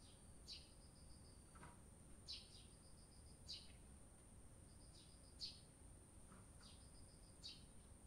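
Eurasian tree sparrow chirping: about six short, sharp chirps spread through, with a faint rapid ticking series in between.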